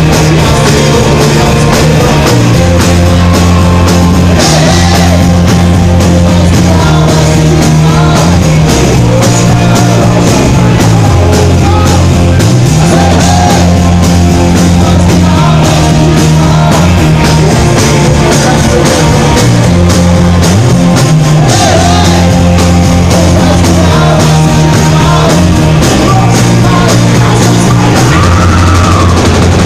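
A live rock song played loud by a band: a steady, stepping bass line under strummed acoustic guitar, with singing at times.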